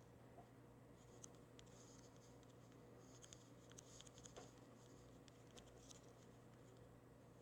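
Faint, irregular taps and light scratches of fingers typing on a phone touchscreen, over near-silent room tone.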